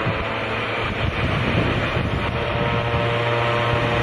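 Engines of a twin-engine propeller plane running steadily as it rolls along the runway, a steady hum with propeller tones, with wind on the microphone.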